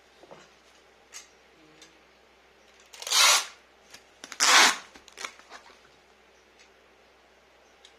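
Packing materials being handled: two loud rasping tears or rustles, each about half a second long, come about three and four and a half seconds in, with small clicks and rustles around them.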